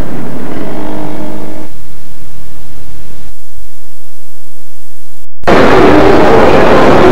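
Hiss and static from blank videotape between recordings. A steady hum cuts out under two seconds in, leaving hiss. The sound drops out completely for a moment about five seconds in, then comes back as loud, even static.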